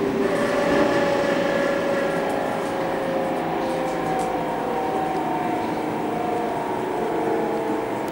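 Berlin S-Bahn class 480 electric multiple unit heard from inside the passenger car while running. The electric traction drive gives several whining tones that glide slowly, mostly falling in pitch, over the steady rumble of the wheels on the rails.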